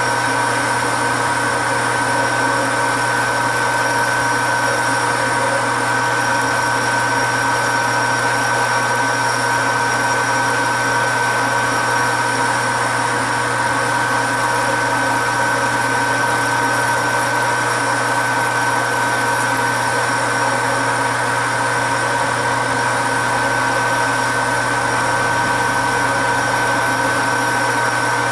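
A heavy metal lathe of about 3,000 pounds running steadily at slow speed while a parting tool is fed slowly through a workpiece. It makes a steady hum with a constant high whine.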